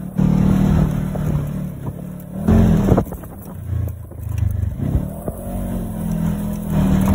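Side-by-side UTV engine running while driving, its pitch rising and falling a few times as the throttle changes, over the noise of the open cab.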